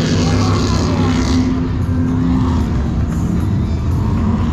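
Engines of offshore powerboats running steadily at low speed, a deep, even engine note with no revving.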